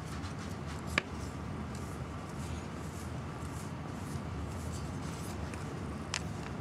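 Bristle brush rubbing through a cat's fur in short scratchy strokes, with a sharp click about a second in and another near the end.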